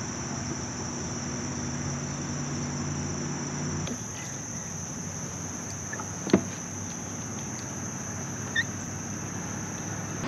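Steady high-pitched insect drone, crickets or similar. For the first four seconds a low steady hum runs under it, then stops suddenly. A single sharp click about six seconds in.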